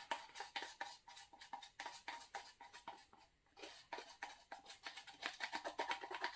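A quick, irregular run of small clicks and scrapes, several a second, from hands handling a paper pour cup on the painting table.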